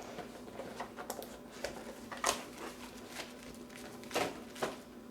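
Keyboard packaging being handled as the box is opened: cardboard and paper wrapping rustling and crinkling in a series of short scrapes and crackles, the loudest about two seconds in and again near four seconds, over a faint steady hum.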